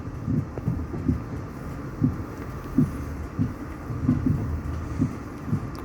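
Passenger train running into a station, heard from inside the carriage: a steady low rumble with irregular low thumps from the wheels over the track.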